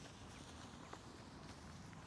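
Faint footsteps on a gravel path, a few soft irregular crunches over a low steady rumble.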